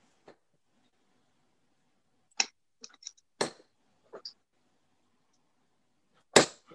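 Steel-tip darts striking a bristle dartboard: a few sharp thuds spread over several seconds, the strongest near the end, with fainter clicks in between.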